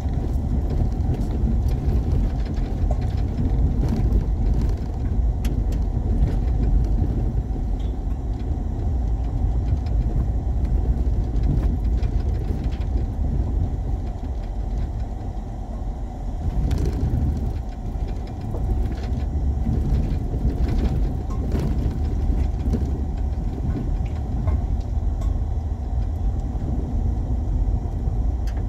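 Vehicle driving along, a steady low rumble of engine and road noise, with a few faint clicks scattered through it.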